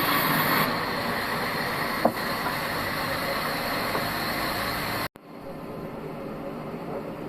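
Bandsaw sawmill machinery running with a steady noise and one sharp knock about two seconds in. About five seconds in the sound cuts off for an instant, then carries on quieter.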